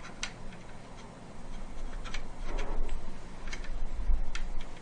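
Scattered light clicks and taps as a CPU cooler back plate and its pins are handled and slid into the motherboard's mounting holes, over a faint steady low hum.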